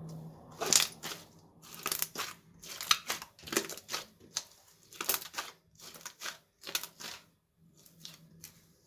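Glossy glitter slime squeezed and stretched by hand: a run of short wet squishes and pops of trapped air, about two a second, the loudest about a second in and softer near the end.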